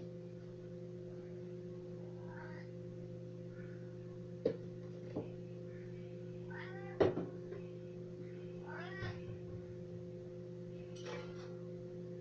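A cat meowing several times, short calls that bend in pitch, over a steady electrical hum. A few sharp clicks or knocks come in the middle, the loudest about seven seconds in.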